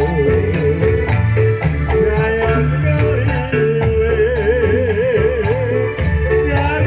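Dolalak folk music: a steady beat of frame drums and tambourine-like jingles under a melody held with a wide, wavering vibrato.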